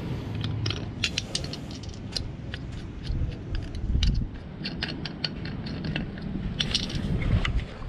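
Hands fitting the inlet connector of a new water booster pump and turning the caps on its top: an irregular string of small clicks and knocks.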